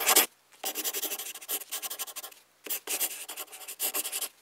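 Marker pen scratching across a drawing surface in a run of writing strokes separated by short pauses; the first stroke, right at the start, is the loudest.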